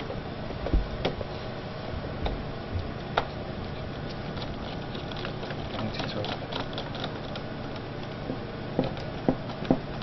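Scattered small clicks and ticks of a precision screwdriver turning a screw into an HP 625 laptop's metal display hinge, a few sharper clicks near the end, over a steady background hum.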